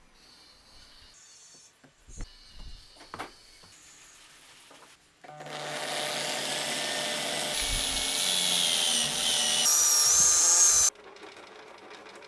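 A drill-powered disc sander running: a loud high whine that rises in steps, then cuts off suddenly. A few light clicks and knocks come before it starts.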